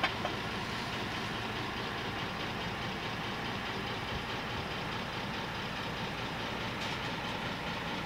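A heavy engine running steadily, a constant even drone with no change in speed.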